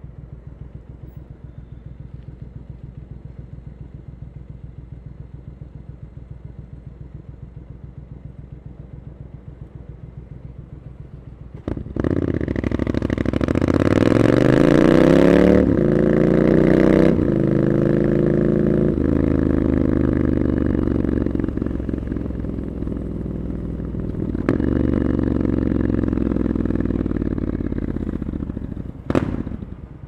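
Triumph Scrambler 900's parallel-twin engine through an Arrow exhaust, idling with an even pulse. About twelve seconds in it pulls away with rising revs and two quick upshifts, cruises, eases off and accelerates again, then drops back to idle near the end.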